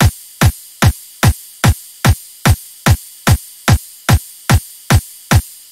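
Hardstyle track intro: a lone electronic kick drum beating four-on-the-floor at about two and a half hits a second, each hit dropping in pitch, over a faint high hiss.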